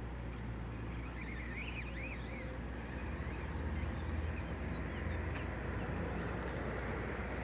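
Small 1/24-scale RC crawler's electric motor and gears running in a steady low hum, a little louder from about three seconds in. Faint bird chirps come in around two seconds in.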